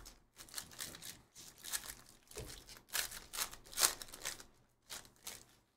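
A foil Panini Donruss basketball hobby pack being torn open and its wrapper crinkled by hand: a run of irregular crackling rustles.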